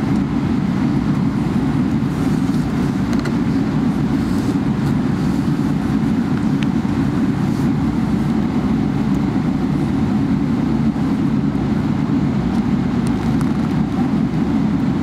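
Steady low rumble from a Boeing 777-300ER, holding an even pitch and loudness throughout.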